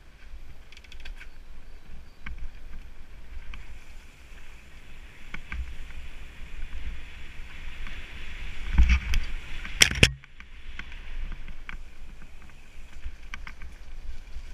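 Mountain bike (Nukeproof Mega TR) riding fast down a dirt forest trail, heard from a head-mounted camera: steady rumble of tyres on dirt and wind on the microphone, with rattling clicks from the bike and two hard knocks about nine and ten seconds in.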